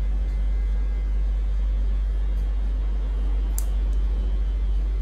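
Steady low rumble of background room noise, with one short sharp click about three and a half seconds in.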